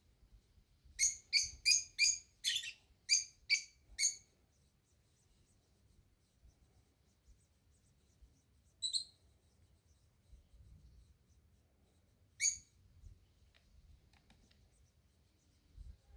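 A bird calling: a quick series of about eight short, clear calls, then two single calls further on.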